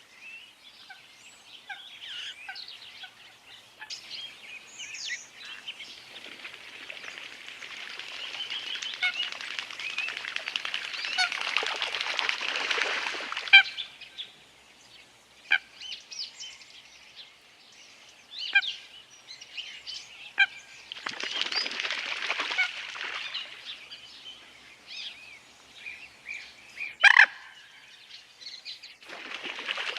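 Birds calling with short, sharp cries throughout, over a rush of water that swells and fades twice.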